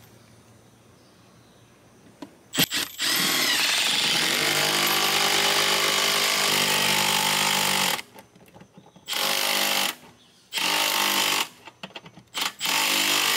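Cordless drill driving a screw through a wall-mount condenser bracket into the wall: after a click, one long steady run of about five seconds, then three shorter trigger bursts as the screw is snugged down.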